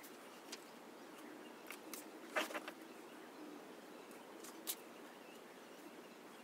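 Quiet room tone with a few small rustles and clicks of a paperback book being handled. The loudest is a brief paper rustle about two and a half seconds in, with a sharper tick just before five seconds.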